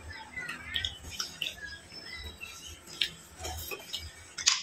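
Fingers picking at a piece of fried food on a tray: scattered small clicks and rustles, with one sharper click near the end. A bird chirps faintly a few times about half a second in.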